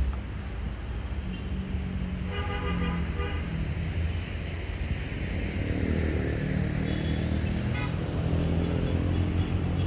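A vehicle horn beeps in two short runs of quick toots, one a couple of seconds in and a fainter one near the end, over a steady low rumble like passing traffic.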